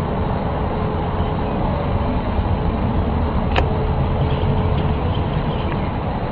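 A steady, loud, low rumbling noise with a faint steady hum above it and a single sharp click about three and a half seconds in.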